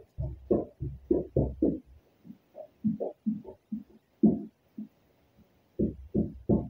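Squeegee working wet paint protection film onto a truck's fender: a run of short, dull rubbing strokes, a few a second, with a brief pause about five seconds in.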